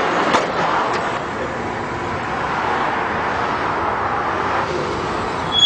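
Steady roar of road traffic from cars passing on a dual carriageway, with a single sharp knock about half a second in.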